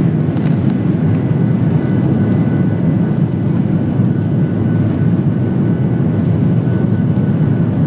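Jet airliner's turbofan engines at takeoff thrust during the takeoff roll, heard from inside the cabin: a loud, even rumble with a faint high whine held on two steady notes.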